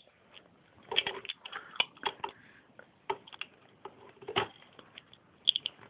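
Plastic Lego pieces clicking and rattling against each other as they are handled: scattered sharp clicks, with a loud one a little past four seconds in and a quick run of three near the end.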